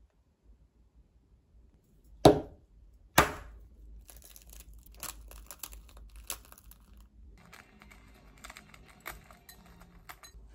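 Hard-boiled egg knocked twice against a hard surface, two sharp cracks about a second apart, then the cracked shell crackling and clicking as it is broken up and peeled off by hand.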